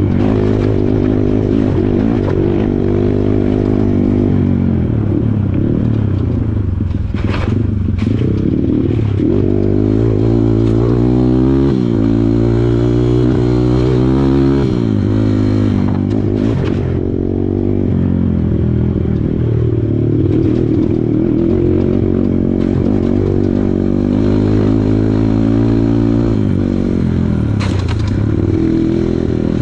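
Kawasaki KLX140 trail bike's single-cylinder four-stroke engine being ridden, its pitch rising and falling over and over as the throttle opens and closes. A few sharp knocks sound along the way.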